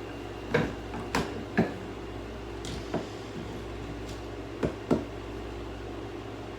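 About six sharp clicks and knocks of hard objects being handled, the last two close together, over a steady low hum.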